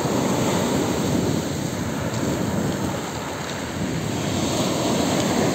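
Sea surf washing onto a pebble beach, a steady rush that swells and eases, with wind buffeting the microphone.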